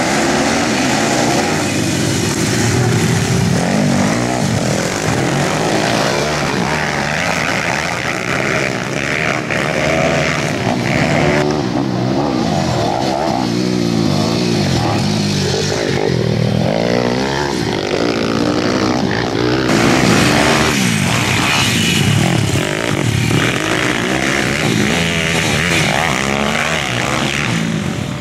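Several small pit-bike dirt-bike engines racing, their revs repeatedly climbing and dropping as the riders accelerate, shift and back off over the jumps, with engines overlapping at different pitches.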